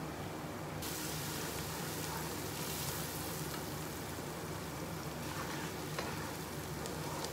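Whole green chillies and onion masala frying in hot oil, a steady sizzle that gets louder about a second in, stirred with a wooden spatula. A steady low hum runs underneath.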